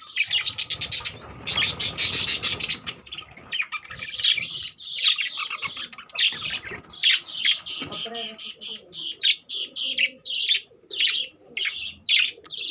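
A flock of budgerigars chattering and chirping: a dense warbling for the first few seconds, then a run of quick, sharp chirps.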